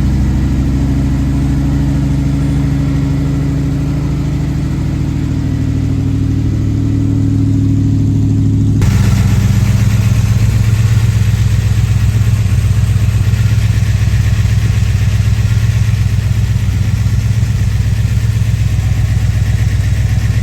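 1970 Dodge Challenger's engine running steadily at idle after a misfire fix, with no revving. About nine seconds in the sound changes abruptly to a deeper, fuller engine note with more hiss.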